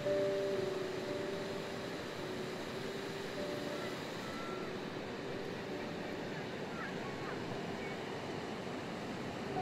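Surf breaking steadily on a sandy beach, an even rushing roar of waves, with soft background music of a few long held notes over it.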